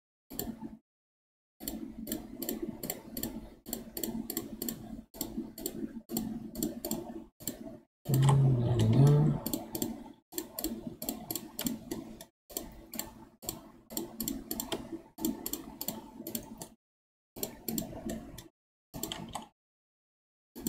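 Clicking of a computer keyboard and mouse, in quick runs of several clicks a second broken by short silent gaps. A louder low sound lasts about a second and a half, a little before the middle.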